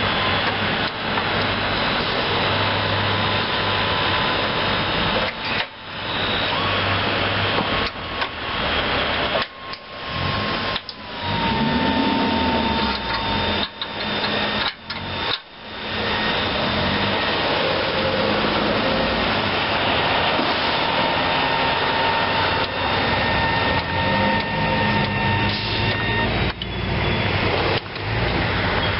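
Kohler 25 HP gas engine of a Hustler Raptor zero-turn mower running steadily, with a brief rise and fall in engine speed about twelve seconds in. Several short sudden gaps break the sound.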